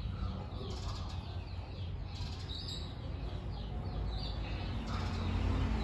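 Small birds chirping over and over, quick short falling chirps, over a steady low rumble.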